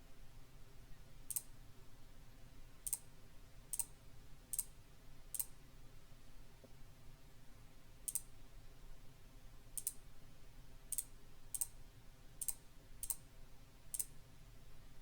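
Computer mouse clicking: about a dozen short, sharp single clicks at irregular gaps, over a faint low hum.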